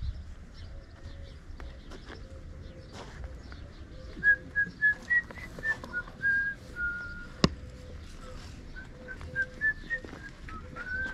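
A person whistling a tune in short held notes that step up and down in pitch, in two phrases about four and nine seconds in, over light clicks of footsteps on dirt. A single sharp click comes about seven seconds in.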